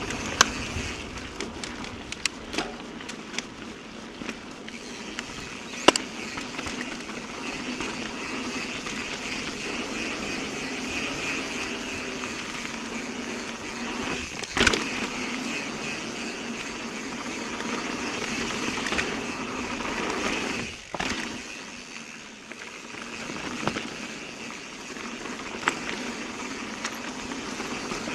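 Mountain bike rolling over a rough trail: steady tyre and wind noise, broken by scattered sharp knocks and clatters from the bike, the loudest about six seconds and fourteen seconds in.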